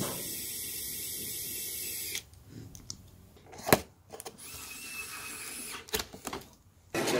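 Sequre ES126 electric screwdriver's small motor running as it drives screws, in two runs of about two seconds each with a steady high whine. A sharp click sounds between them.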